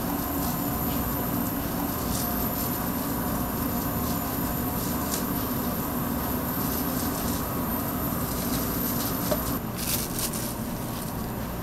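Steady mechanical hum and hiss of a street-food shop kitchen, with a few faint clicks. Near the end the hum stops and a few sharp clatters are heard.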